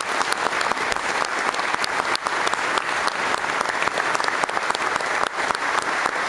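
Audience applauding at a steady level, many hand claps overlapping.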